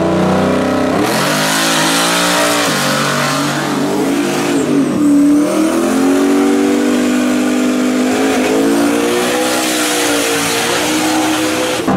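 Car engine revving hard, its pitch climbing and then dropping back several times, over a steady hiss.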